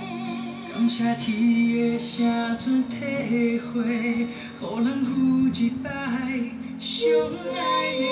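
A song with singing played through a Bluedio CS4 Bluetooth speaker with its 3D sound effect mode switched on.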